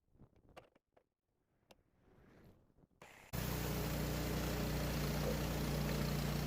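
Faint scattered clicks and taps, then about three seconds in an engine suddenly starts sounding and runs steadily at a low, even pitch.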